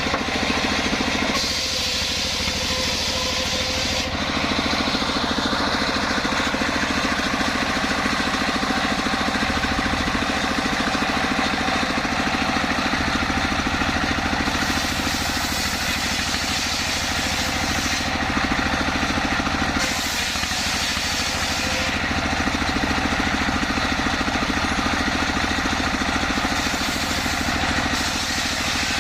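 Engine-driven sawmill running steadily while its saw cuts jackfruit wood. The higher, hissing part of the sound shifts every few seconds against the steady engine.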